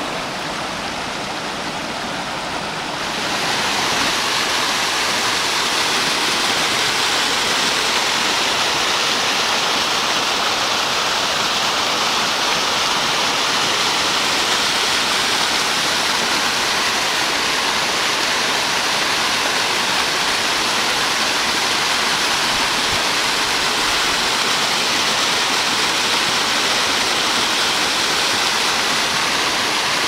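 Creek water rushing over stones, then a small waterfall cascading down rock ledges: a steady rush of water that grows louder about three seconds in.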